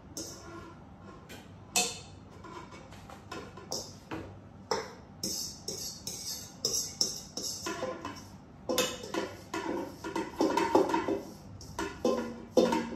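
Large stainless steel mixing bowl clanking and ringing as chopped garlic chives are mixed in it by hand. Scattered knocks at first grow into a busy clatter from about eight seconds in.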